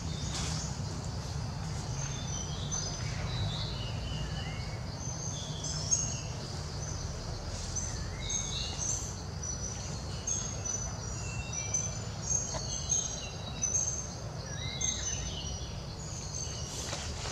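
Forest birds calling: a steady scatter of short whistled notes and chirps at several pitches, some slurring up or down, over a steady low rumble.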